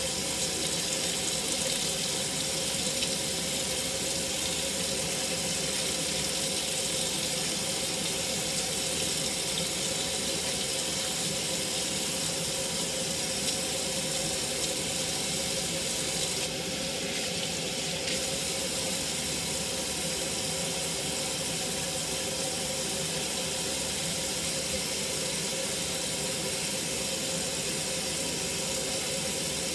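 Kitchen tap running steadily into a stainless-steel sink, the stream splashing in the basin.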